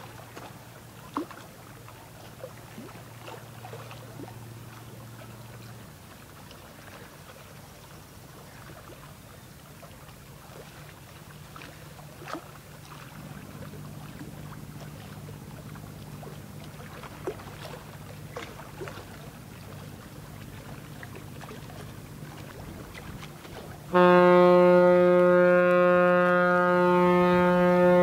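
Large ship's horn sounding one long, steady blast near the end, much louder than everything before it, over the low steady drone of passing ships.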